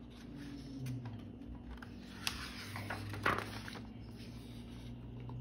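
Pages of a picture book being turned by hand: a soft paper rustle with a couple of light clicks about two and three seconds in, over a faint steady hum.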